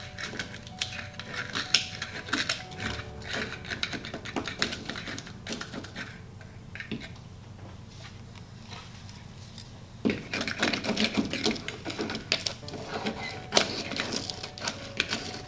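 Spatula scraping and tapping rapidly inside a bottle of lithium chloride, chipping at solid that has caked into hard chunks from absorbed moisture. The scraping eases off in the middle, then picks up again about ten seconds in.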